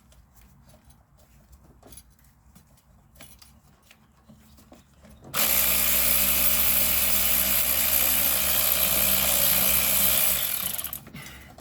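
Power driver spinning a starter mounting bolt out: light tool clicks, then about five seconds in the driver's motor runs steadily for about five seconds and stops as the loosened bolt comes free.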